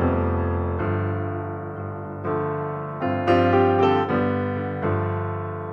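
Background piano music: struck piano notes and chords, each ringing out and fading.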